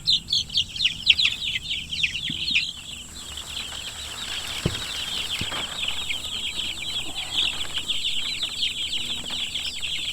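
A crowd of Freedom Ranger chicks about three weeks old peeping in a dense, constant chorus of high, falling chirps. The peeps are louder and more separate for the first three seconds, then blend into a steady chatter. Two dull knocks sound about halfway through.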